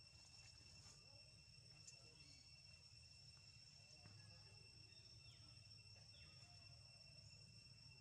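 Near silence, with a faint, steady, high-pitched insect drone.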